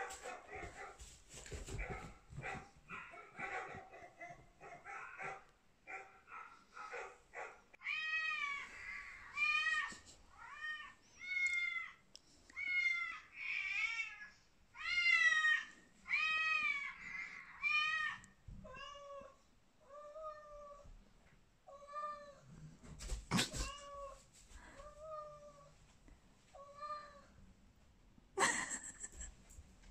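Recorded cat meowing over and over, about one call a second. The later calls are lower-pitched, and a sharp knock comes about two-thirds of the way through.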